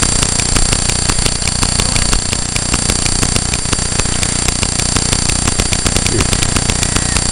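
Steady electrical buzz from the camera itself, a high whine with a fast, even ticking running through it, caused by a fault in the camera.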